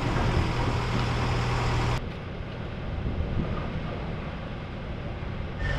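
Heavy truck or crane engine running steadily at low revs. About two seconds in, the sound cuts abruptly to a quieter, rumbling stretch, and the engine hum returns near the end.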